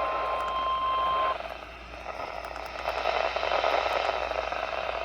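NOAA Weather Radio warning alarm tone: a single steady 1050 Hz beep that cuts off abruptly about a second in, marking an incoming warning. Then a receiver's radio hiss, with a voice faintly starting under it.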